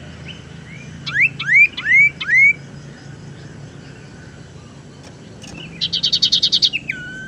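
Common iora (sirtu) calling: four quick rising whistles about a second in, then a rapid trill of about ten notes near the end, closing on a falling whistle.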